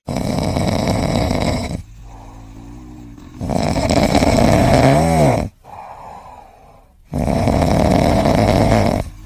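A pet snoring: three long, loud snores about three and a half seconds apart, with quieter breathing between them.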